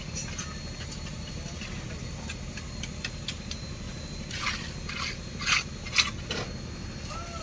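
Handling noise from a plastic bottle and paintbrush being worked over bowls of paint: a few short, sharp scrapes about two-thirds of the way in. A steady low hum runs underneath.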